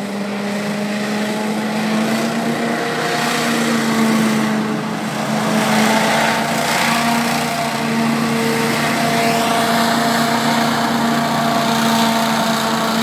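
Small hovercraft's engine and ducted thrust fan running at a steady pitch as the craft skims over the river, loudest as it swings close about halfway through.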